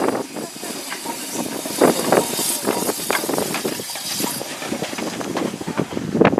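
Narrow-gauge steam locomotive Axe moving slowly past, its exhaust chuffing irregularly over a steady hiss of steam.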